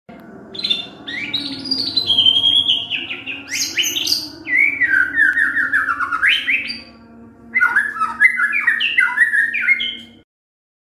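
White-rumped shama (murai batu) singing: rapid runs of whistled notes, many sliding downward in quick series, broken by a short pause about two-thirds of the way through before a second burst. A faint steady low hum lies underneath, and everything stops about a second before the end.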